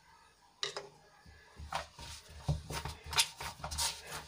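Hands kneading stiff, oiled gram-flour dough in a steel basin: irregular soft thumps and squishing rubs as the dough is pressed against the metal, beginning about a second in.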